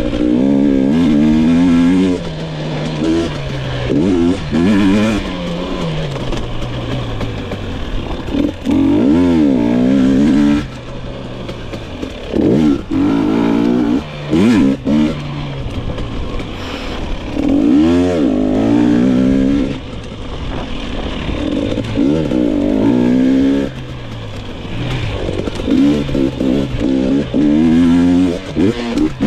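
2022 GasGas EX 250 two-stroke single-cylinder engine being ridden hard, its pitch repeatedly rising under throttle and dropping back off in surges of a second or two.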